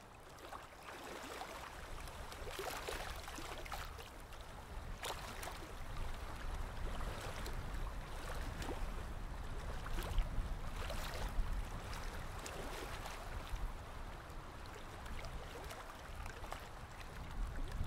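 Aquarium water gurgling and trickling steadily, with many small irregular bubbling pops and a low hum underneath.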